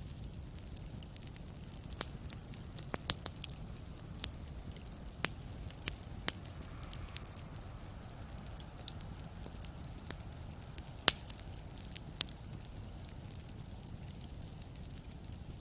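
Wood fire crackling in a fireplace: a steady low rumble under scattered sharp pops, irregularly spaced, with a loud pop about eleven seconds in.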